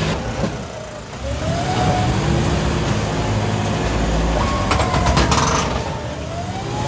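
John Deere 5405 tractor's diesel engine working under load as it pulls a stuck, loaded trolley free, revving up and falling back several times. A short rattle of rapid clicks comes about two-thirds of the way through.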